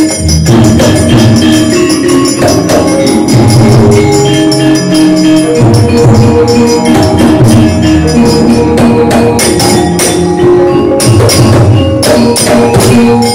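Javanese gamelan music: loud, ringing metallophone notes over many sharp percussive strikes.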